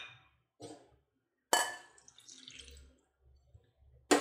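Glass bowls clinking and knocking on a kitchen counter as a bowl is handled and set down. The loudest clink comes about a second and a half in, followed by faint small rattles and another knock at the very end.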